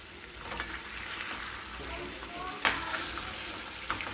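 Chicken sizzling in a pan as it is stirred with pepper powder and garam masala for a pepper chicken dry, with the utensil knocking against the pan a few times, most sharply about two and a half seconds in.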